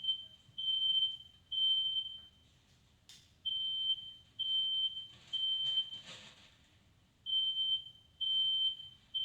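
Smoke alarm sounding its three-beep evacuation pattern: high-pitched beeps in groups of three, with a pause after each group, set off by smoke in the room. A sharp click about three seconds in.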